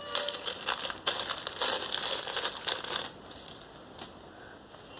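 Packaging crinkling and rustling as a box is unboxed by hand, busy for about three seconds and then quieter.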